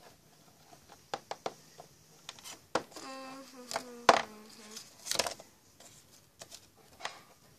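Hands handling small toys and cloth on a tabletop: scattered light knocks, taps and rustles. About three seconds in, a child's voice hums one note for about two seconds.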